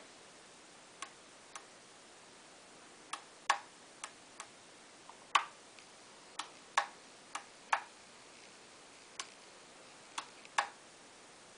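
Switches on a JR X9303 radio-control transmitter being flicked, giving about fifteen sharp clicks, mostly in pairs a few tenths of a second apart.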